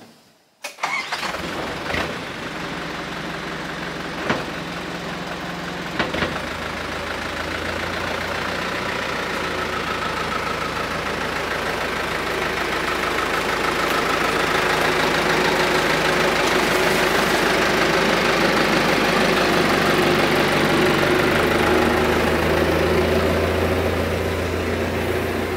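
Komatsu backhoe loader's diesel engine running as the machine pulls ahead. It grows louder over the first half and then holds steady, with a few sharp clicks or knocks in the first six seconds.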